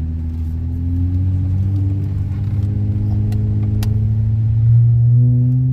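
Dodge Challenger's engine pulling under light acceleration, its drone rising steadily in pitch, breathing through a freshly installed Spectre cold air intake; the owner hears nothing major wrong.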